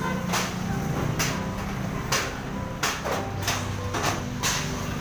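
Hammer blows on corrugated galvanized iron roofing sheets as a shanty is dismantled: about seven sharp metallic strikes at an irregular pace, each with a brief ring.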